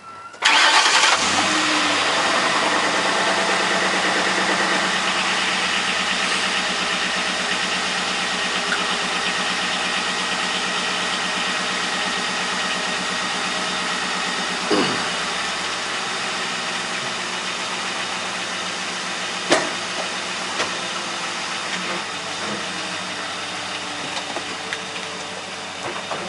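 The 2005 Ford Crown Victoria's 4.6-litre V8 starts about half a second in. Its revs flare briefly, then settle into a steady idle that eases a little over time, with a couple of brief knocks along the way.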